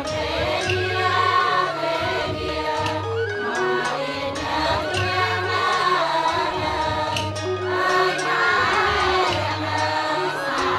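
Khmer lakhon bassac theatre music: a wavering melody over a bass note that repeats about once a second, with light percussion.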